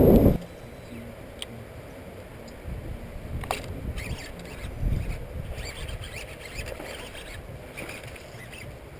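Wind rumbling on the microphone in gusts, with a few faint clicks and taps.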